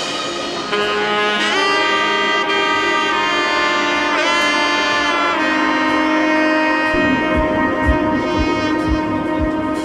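Background music led by a saxophone-like horn melody over sustained chords, with a low beat coming in about seven seconds in.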